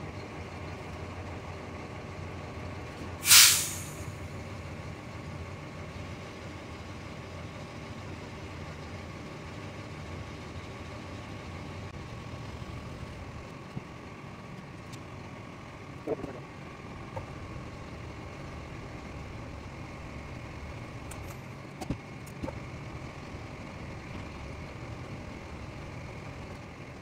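Portable line-boring machine running steadily as it cuts the worn lift-cylinder bore in a Cat 980G loader arm. About three seconds in there is one short, loud hiss, and a few light clicks come later.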